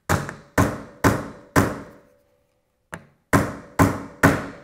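Hammer striking a headed pin into the magazine catch hole of a Mosin-Nagant rifle stock, driving it in flush: four sharp taps about half a second apart, a pause with one light tap, then three more, each ringing briefly.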